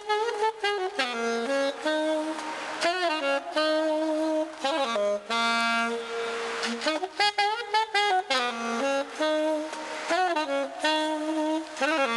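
1927 Conn New Wonder alto saxophone, a low-pitch (A=440) horn, played solo: a melodic line of held and quickly changing notes, with short breaks between phrases.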